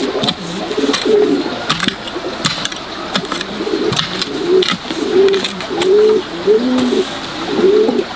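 Birds giving low cooing calls in a rapid series, about two a second, mixed with scattered sharp clicks.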